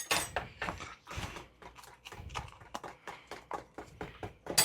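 Irregular light knocks and clicks of kitchen utensils and containers being handled, with a brief rushing, noisy burst at the start and again at the end.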